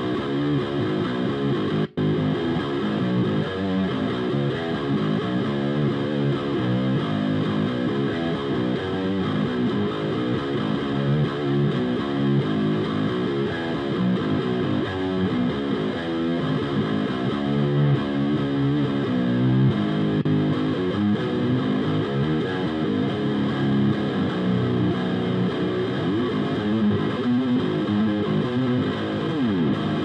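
Carvin DC727 seven-string electric guitar with Bare Knuckle BlackHawk 7 pickups played through a Diezel VH4 valve amp on its high-gain channel 3: continuous heavily distorted playing, recorded with an SM57 close on the speaker cone and no noise gate or processing. The sound drops out for a split second about two seconds in.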